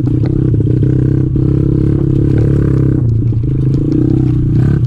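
Kawasaki KLX110 pit bike's small single-cylinder four-stroke engine running steadily under way, with rattles and knocks from the bike bouncing over rough dirt trail.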